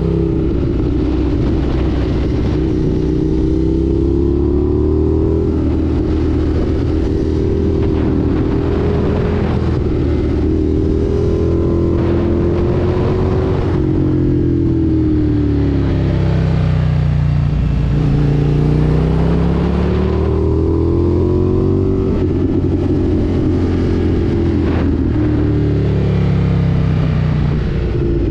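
Indian FTR 1200 S motorcycle's V-twin engine under way, its note climbing and dropping several times as the rider accelerates and backs off.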